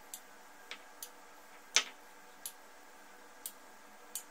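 Metal spoon clicking against the glass bowl and plate while whisked yogurt is spooned onto the chaat: about seven light, irregular ticks, the loudest a little under two seconds in, over a faint steady hum.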